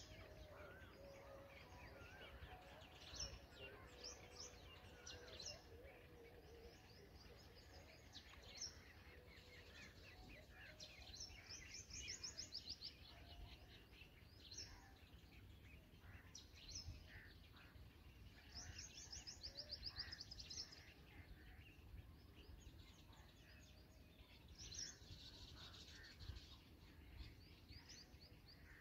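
Faint bird chirps and calls, with two fast trills of rapidly repeated notes about twelve and nineteen seconds in.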